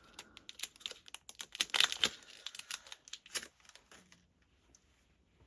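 Foil trading-card pack wrapper being torn and crinkled open and the cards handled: quick dense crackling and clicking, loudest about two seconds in, dying away after about three and a half seconds.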